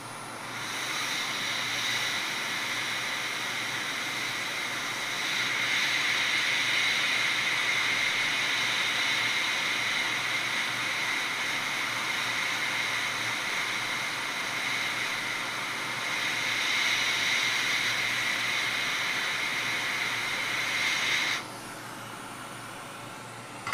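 Hot air rework station blowing on a tiny surface-mount component to solder it onto a laptop logic board: a steady hiss of air with a high whine in it, getting louder about five seconds in and cutting off suddenly near the end.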